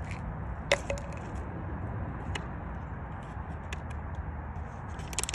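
A clear plastic package handled and cracked: one sharp crack under a second in, a few light clicks, and a quick cluster of clicks near the end, over a steady low background rumble.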